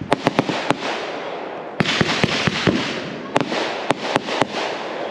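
Aerial fireworks going off: clusters of sharp cracks and pops over a crackling hiss, with a new cluster roughly every one and a half to two seconds.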